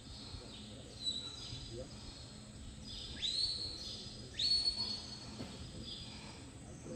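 Handler's stock-dog whistle commands to a herding dog working cattle. A short whistle comes about a second in, then two longer blasts, each sweeping sharply up and holding a high note, about three and four and a half seconds in.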